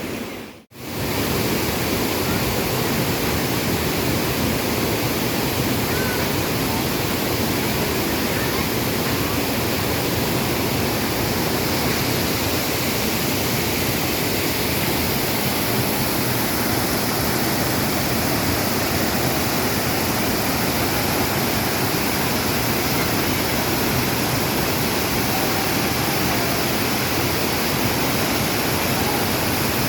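Waterfall and river water rushing steadily, starting after a brief gap just under a second in.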